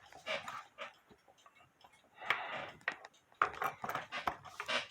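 Irregular mechanical clicks and short rustling noises from a cuckoo clock movement being handled and set running.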